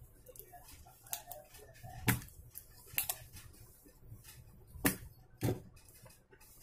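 A few sharp, irregular clicks and knocks from tools and a monitor power-supply circuit board being handled on a workbench, with faint rustling between them.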